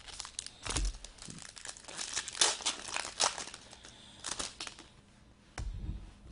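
Wrapper of a Panini Phoenix Football trading-card pack crinkling and tearing as it is handled and opened by hand, in a run of crackly rustles. Two dull knocks, near the start and near the end.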